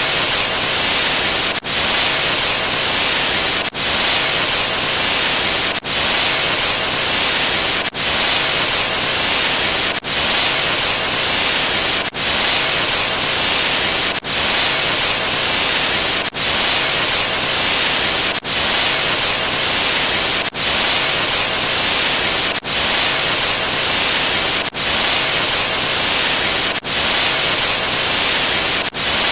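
Loud white-noise static sound effect, played as repeated clips of about two seconds, each separated by a brief dropout.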